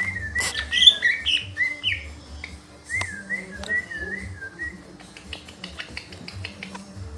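Leafbird (cica ijo) singing: warbled, wavering whistled phrases with some higher notes, then a quick run of sharp clicking notes about five seconds in. A low steady hum sits underneath.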